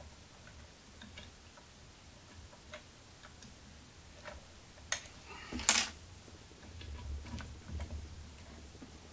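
Small metallic clicks and ticks as the set screws on a stepper motor's shaft coupling are tightened by hand, alternating between the two screws. Two sharper clacks come about five seconds in, the second one the loudest.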